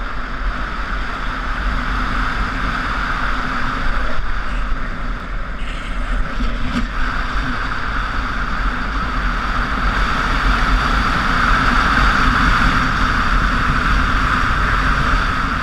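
Wind rushing over the microphone and longboard wheels rolling on asphalt at speed during a downhill run: a steady rush with a deep rumble beneath, swelling a little over the run, with a single click about seven seconds in.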